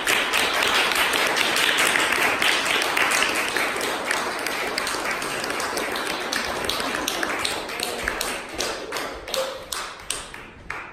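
Audience applauding, the clapping thinning to scattered claps and fading out near the end.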